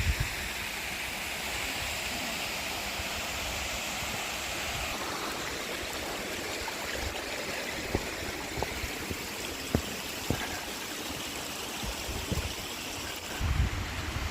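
Steady rush of a mountain river or stream running close by, with a few faint knocks about halfway through.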